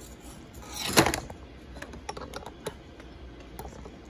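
Hard plastic toy parts of a Power Rangers Dino Fury Megazord clicking and clacking as they are handled and snapped together, with one louder clack about a second in and scattered light ticks after it.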